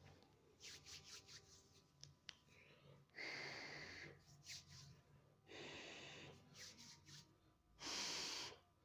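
Faint breathing close to the microphone: three soft breaths about two seconds apart, with a few small clicks between them.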